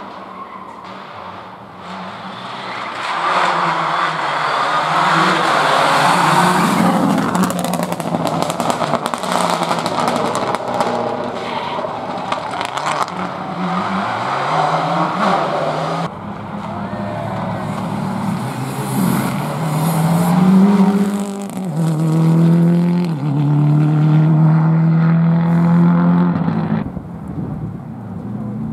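Subaru Impreza rally cars at full throttle, their turbocharged flat-four engines revving hard as they pass, with some tyre squeal. About halfway through the sound changes abruptly to a second car whose engine note climbs and drops back several times through gear changes.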